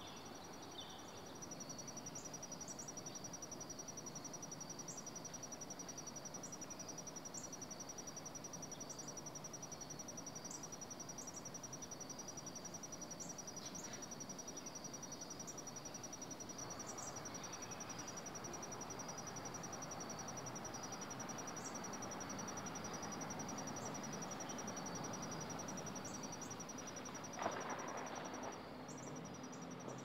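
Insects trilling: a steady, fast, high pulsing with a wavering band just below it, and short high chirps dotted above. A brief louder call stands out near the end.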